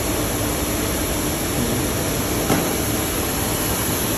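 Steady rushing noise of running workshop machinery, with one faint click about two and a half seconds in.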